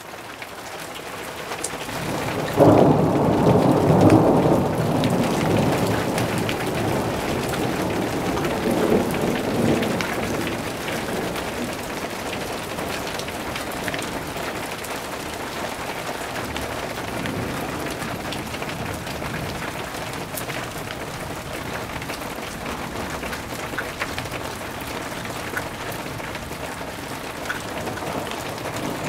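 Thunderstorm: a thunderclap breaks about two and a half seconds in and rumbles for a few seconds, with a smaller roll of thunder near nine seconds. Steady rain falls throughout, with scattered drops ticking.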